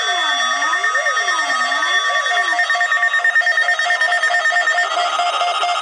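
Several electronic alarm tones sounding at once: a whooping tone sweeping up and down about once a second that stops about halfway through, steady high tones that drop out one by one, and a rapid pulsing beep that carries on throughout.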